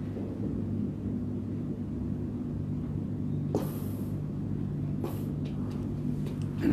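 Steady low hum in a quiet pause, with a brief rustle-like burst of noise about three and a half seconds in, a softer one a little later and a few faint clicks near the end.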